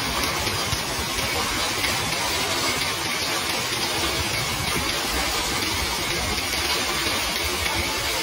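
Hail mixed with rain falling on paved ground: a dense, steady hiss of small hailstones and drops striking the pavement.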